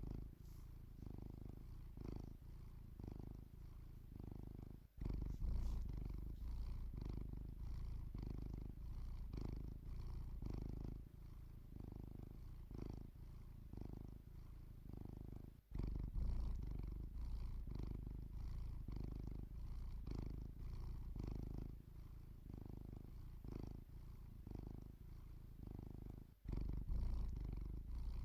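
Domestic cat purring, a low rumble that swells and fades in a steady rhythm with its breathing, broken by three brief gaps.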